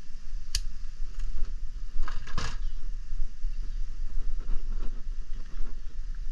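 Handling noise: scattered clicks and a louder clatter about two seconds in, over a steady low hum.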